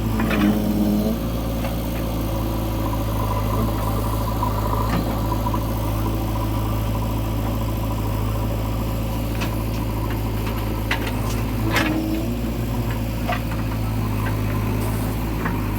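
Heavy diesel engine running steadily at low revs, with a few short knocks in the second half.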